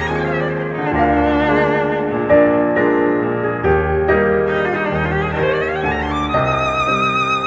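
Violin and piano music played back through Tannoy Stirling TW loudspeakers, driven by a Triode TRV-88SE tube amplifier from a Yamaha CD-S2000 CD player. The violin plays with vibrato and sweeps up and down in pitch over piano chords, settling on a held note near the end.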